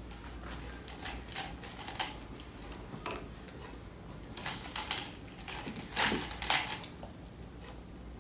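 Small hard candies rattling and clicking in a plastic cup as fingers dig through them, in irregular short clicks with a busier cluster about halfway through.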